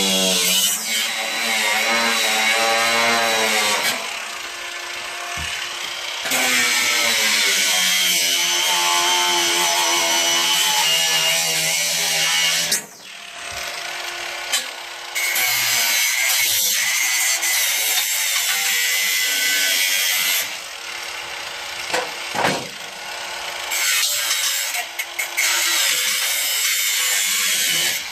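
Electric power tool running in long, loud runs, its pitch wavering as it is worked. It eases to a quieter level about 4, 13 and 21 seconds in.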